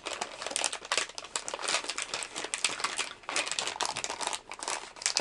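Clear plastic bag of soft plastic swimbaits crinkling and crackling as it is handled in the hands, a dense, unbroken run of sharp crackles.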